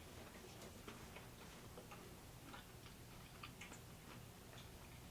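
Faint, close-up chewing of a crispy sauced chicken nugget: irregular small crunches and wet mouth clicks.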